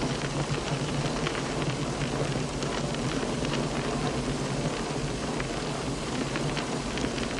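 Steady factory din of metalworking machinery, a low hum under an even hiss with faint scattered clicks.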